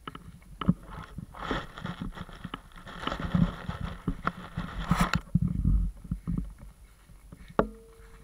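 Cocker spaniel right up at the action camera's microphone, sniffing and licking at a hand, with irregular knocks and rustles as the camera is jostled on the grass. A sharp click near the end.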